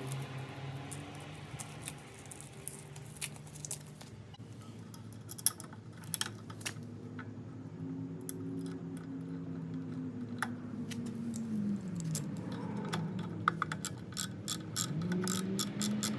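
Scattered light metallic clicks and clinks of small parts and hand tools being handled, over soft background music with slowly gliding low tones.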